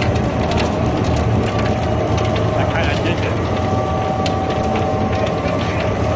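Sawdust pellet mill running in production: a steady mechanical drone with a low hum and a few held tones, overlaid by irregular sharp clicks and rattles.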